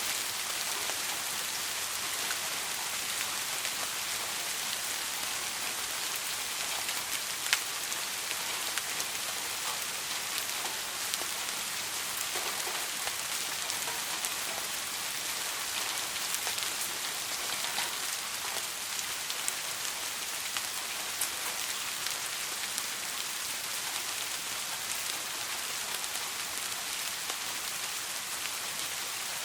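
Steady rain falling, a dense even hiss with scattered individual drops ticking, one sharper drop about seven seconds in.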